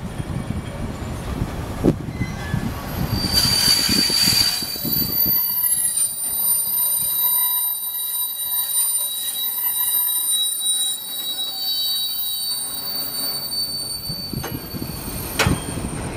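Freight train wagons passing close by, with wheels rumbling and clacking over the rails. From about three seconds in, a steady high-pitched metallic squeal from the wagons rings on over the run, while the low rumble fades after about five seconds.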